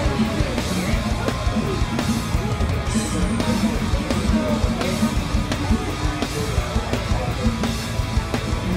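Rock backing music with drums and guitar, keeping a steady beat.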